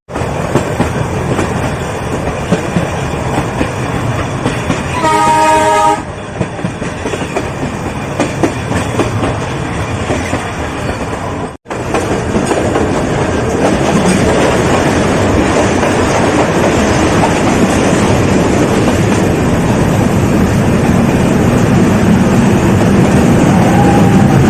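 Nilgiri Mountain Railway toy train running, with steady wheel and running noise and a clickety-clack on the track; the train's horn sounds once for about a second, about five seconds in.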